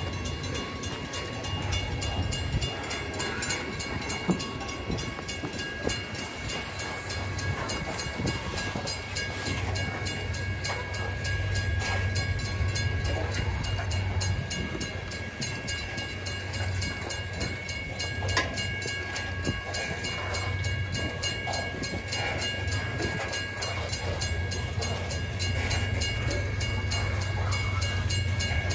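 BNSF freight train's cars rolling past: a steady low rumble with rapid, regular clicking of the wheels on the rails and a few faint, steady high tones.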